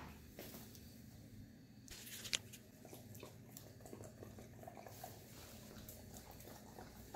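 Two dogs, an Alaskan malamute and a Siberian husky, licking whipped cream off hand-mixer beaters, with faint wet licking sounds and one sharp click a little over two seconds in.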